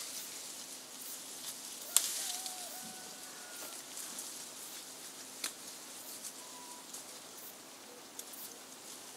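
Campfire crackling: a few sharp pops, the loudest about two seconds in, over a faint steady hiss, with a few faint whistled notes in the background.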